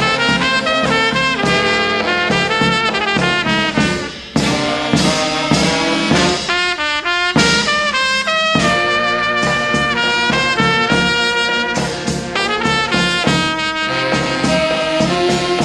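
Brass band playing a fast melody led by cornet, with lower brass holding notes beneath; the music briefly drops away about four seconds in.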